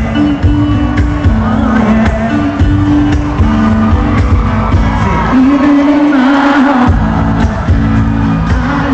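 Live acoustic pop band playing, with several acoustic guitars under a sung vocal, loud through the concert PA. About five seconds in, the bass drops away for a second or two under a held sung note, then comes back.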